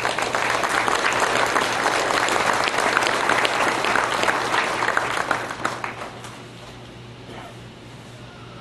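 Audience applauding, which dies away about six seconds in.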